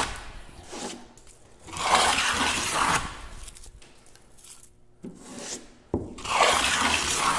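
Hand plane shaving wood as it cuts a rabbet along the edge of a board: two long strokes of hissing shaving noise, about two seconds in and again near the end.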